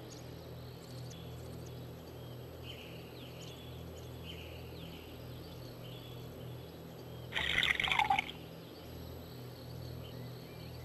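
Outdoor ambience: faint bird chirps over a steady low hum, with one louder sound lasting about a second some seven seconds in.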